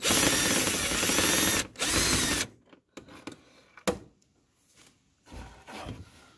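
Handheld cordless power driver spinning out a bumper bolt: one run of about a second and a half, then a shorter second run. After that comes quieter handling noise with a single sharp click about four seconds in.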